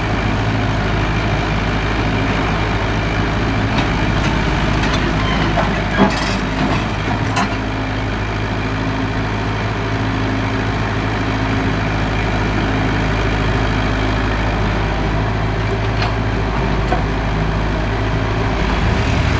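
Heavy diesel engines of an excavator and dump truck running steadily, with a few short clanks.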